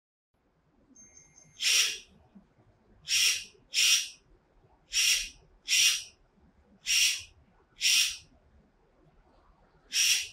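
Battery-powered electric pruning shears giving a short triple beep as the blade is switched on, then snapping shut eight times, each a brief motor-driven cut on a trigger press.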